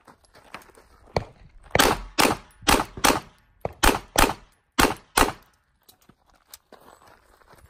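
Pistol fired in a rapid string of about nine shots, mostly in pairs a little under half a second apart, over about four seconds, then the firing stops.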